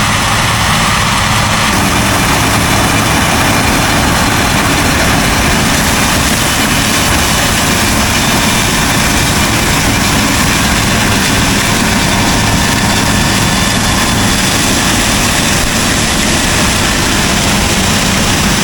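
Claas combine harvester running steadily, a loud even engine and machinery din that holds level throughout.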